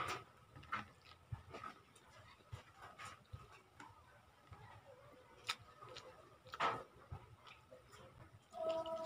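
Soft, scattered wet clicks and ticks of fingers pulling apart a vinegar-stewed milkfish and picking up rice from a banana leaf, with a few sharper ticks standing out. A short humming tone comes in near the end.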